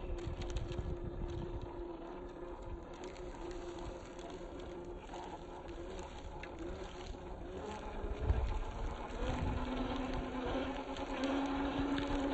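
Electric motor and gear drivetrain of a 1/10-scale RC crawler whining steadily as it drives, the pitch shifting with the throttle, dropping about nine seconds in and then slowly rising. There is low rumbling underneath and a knock about eight seconds in.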